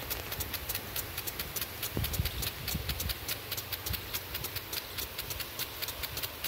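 Several impact sprinklers running: rapid, uneven clicking of their swinging arms over the hiss of the water spray.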